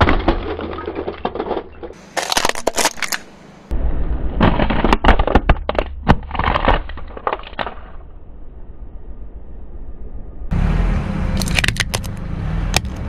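A car tyre rolling slowly over plastic toys: a plastic toy bus cracking and snapping as it is crushed, then a boxed toy airliner crackling and crumpling under the tyre. The cracks come in dense runs, with a low rumble under them and a quieter pause in the middle.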